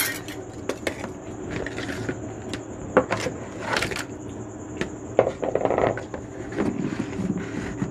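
Scattered knocks, clicks and brief scrapes of kitchen vessels and utensils being handled, over a steady high-pitched background tone.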